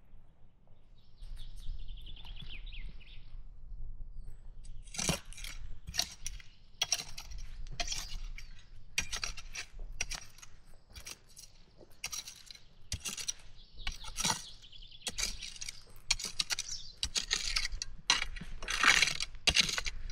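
A metal hand tool scraping and chopping into garden soil in repeated, irregular strokes, about one a second, while drawing earth up around potato plants (hilling). There is a small clink here and there.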